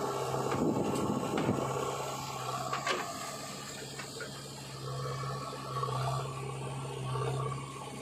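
JCB 3DX backhoe loader's diesel engine running steadily with a low hum. Soil pours from its backhoe bucket into a tractor trolley with a rushing clatter in the first second or two, and a sharp click comes about three seconds in as the bucket goes back down to dig.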